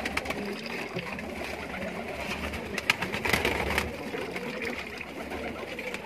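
A flock of domestic pigeons cooing, many low coos overlapping into a continuous murmur, with a few sharp clicks among them.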